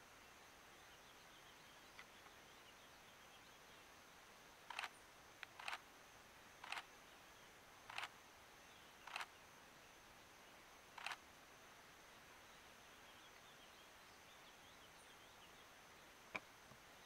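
Single-lens reflex camera shutter firing six times over about six seconds, each release a short double click, irregularly spaced. A single sharp click follows near the end, over faint high chirping in the background.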